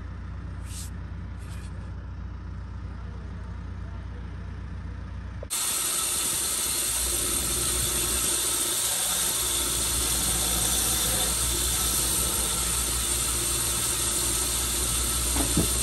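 A vehicle engine idles with a steady low hum. About five seconds in, a power grinder takes over suddenly, loud and steady, as the rubber edge of a work boot's sole is ground down.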